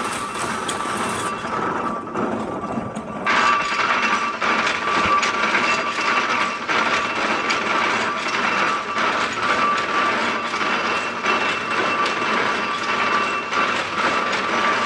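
Axminster power carpet loom running: a loud, rapid mechanical clatter with a steady tone through it, louder from about three seconds in. Very noisy.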